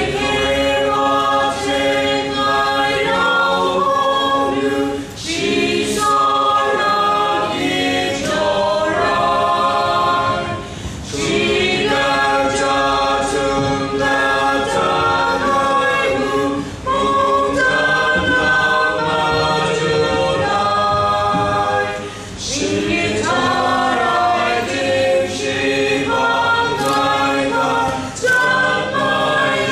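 Small mixed group of men's and women's voices singing together unaccompanied, in phrases of about five to six seconds with short breaks for breath between them.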